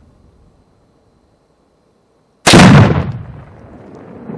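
A single loud rifle shot about two and a half seconds in, its echo dying away over a second or so.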